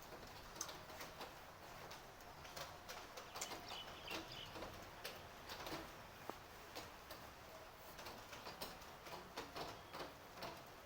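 Rain falling, with steady hiss and irregular drips tapping sharply on hard surfaces several times a second.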